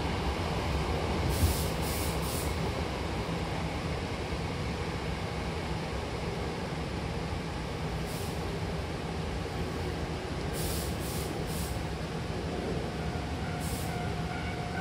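Hankyu commuter train running between stations, heard inside the car at the doors: a steady rumble from the running gear, with a few brief high hisses now and then.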